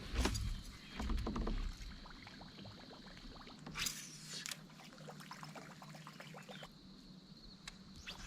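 Sounds of moving about in a fishing kayak: scattered knocks and clicks against the hull, a brief splash of water about four seconds in, and wind rumbling on the microphone in the first two seconds.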